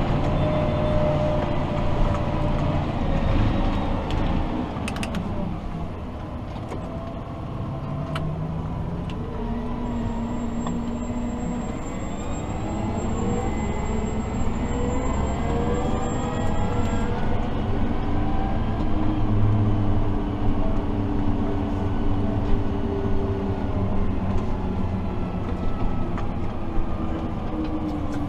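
Fendt 828 Vario tractor's six-cylinder diesel running under way, heard from inside the cab: a steady low drone with whines that slide up and down in pitch as speed changes.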